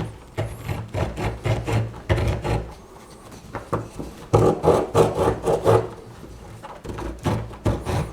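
The small saw blade of a simple pocket knife rasping back and forth through a tree branch in quick strokes, about two or three a second, pausing briefly around three seconds in, then resuming louder. The blade is blunt and the cutting is much harder than with the Victorinox saws.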